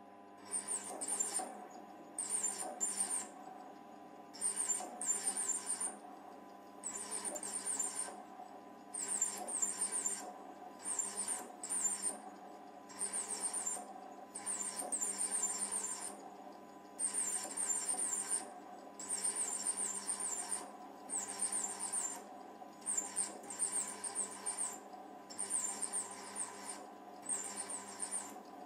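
Mini lathe running with a steady whine while a parting tool cuts into a spinning metal tube under dripped cutting fluid, squealing in short high bursts that come back about every one to two seconds.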